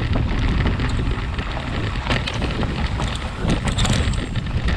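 Wind rumbling on the microphone of a mountain bike descending a dirt trail, with the tyres rolling over dirt and dry leaves and the bike rattling with frequent small clicks and knocks over the bumps.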